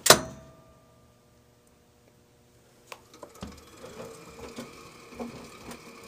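A sharp knock at the very start, then a moment of near silence. From about three seconds in, a Kenmore (Frigidaire-built) front-load washer runs on its spin cycle, with a faint steady hum and light, irregular clicking and rattling.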